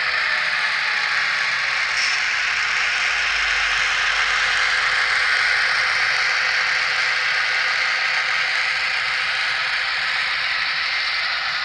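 N scale model freight cars rolling past on the track: a steady, even noise of small metal wheels on the rails.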